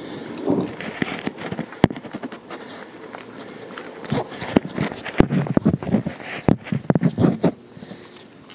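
Irregular clicks, knocks and rustling, with a few sharp cracks standing out about two, five and six and a half seconds in.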